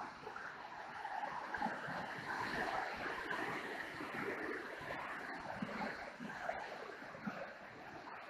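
Niagara River white-water rapids rushing, a steady roar of churning water.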